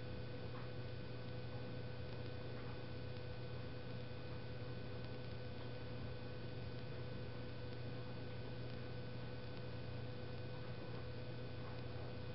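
Steady low electrical hum with a fainter steady whine above it, and a few faint ticks.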